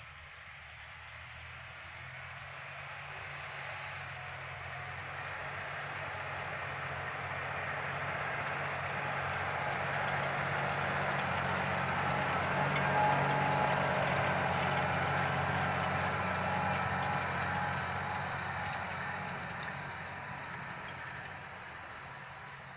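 Large John Deere tractor's diesel engine running steadily under load as it pulls a disc harrow. It grows louder as it passes close by about halfway through, then fades as it moves away.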